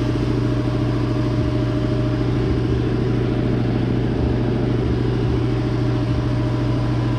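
A machine running with a steady, unchanging low hum.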